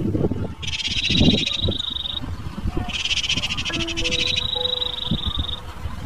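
A chorus of animal calls: two long, rapid buzzing trills, one about half a second in and one about three seconds in, alternating with a steady high-pitched drone, over irregular low sounds.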